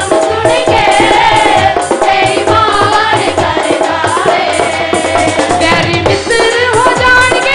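Amplified Christian worship song sung by women's voices into microphones over a steady, quick percussion beat.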